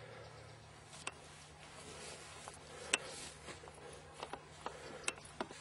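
Faint rustling and a few sharp, light clicks, the sharpest about three seconds in, from a golfer walking across the grass and handling the flagstick.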